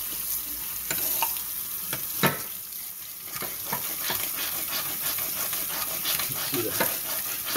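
Kitchen tap water running into a sink while a cleaning rod is scrubbed back and forth through a black-powder pistol barrel, giving scraping clicks over the hiss of the water. One sharp click comes a little over two seconds in.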